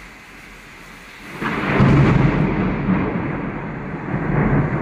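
Heavy rain hissing, then about a second and a half in a loud rumble of thunder breaks in suddenly and keeps rolling.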